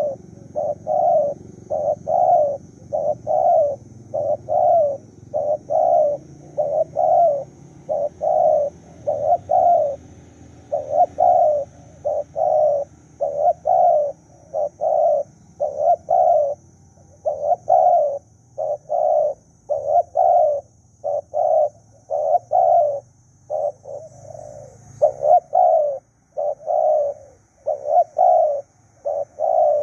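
Spotted dove cooing: a long run of short coos in quick succession, about three every two seconds, with hardly a pause.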